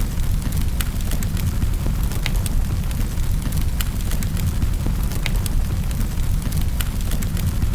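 Fire crackling in a fireplace: a steady low rumble of flames with many sharp crackles and pops scattered irregularly throughout.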